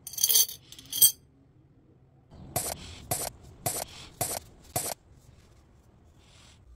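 Metal screws slide and clink against a glass jar, then there is a sharp click. About two and a half seconds in, a metal eye screw is twisted into a wooden handle, giving five short creaks about half a second apart, one for each turn.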